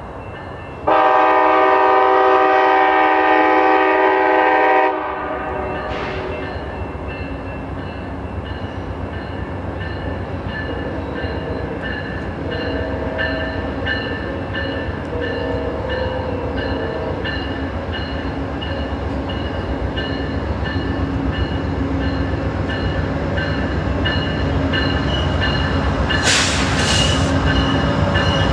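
VIA Rail GE P42DC diesel locomotive sounding one long, loud blast of its multi-chime horn, about four seconds, then the passenger train rolling in with its engine and wheel rumble growing steadily louder. A bell rings in even, repeating strokes throughout, and a brief hiss comes near the end.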